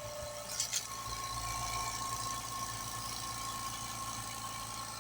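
Limodot 5-gallon oil-free quiet air compressor running steadily: a low hum with a constant whine, quiet enough to talk over, with a short click about a second in.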